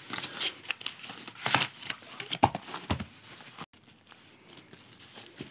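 Plastic packaging crinkling and rustling as a selfie stick is unwrapped and handled, with scattered sharp clicks. The rustling is busiest for the first three seconds, then turns fainter.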